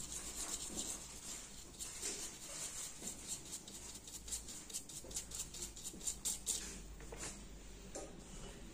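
Small brush scrubbing the corroded pins of a phone's display board connector: quick, irregular, light scratchy strokes of bristles on the metal and plastic, to clean off water and oxidation.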